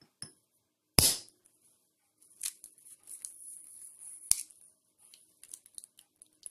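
A year-old, dried-out hard-boiled egg knocked once against a saucer with a sharp crack about a second in. Then its shell crackles and snaps in a run of small clicks as it is broken open by hand, with one more sharp snap near the middle.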